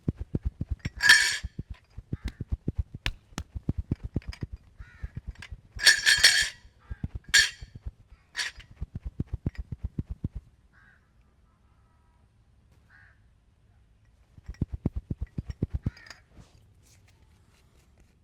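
Fast percussive massage: hands beating rhythmically on a person's head and back at about seven strokes a second, in a long run that stops about ten seconds in and a shorter run near the end. Several loud, harsh caw-like calls cut across the first run.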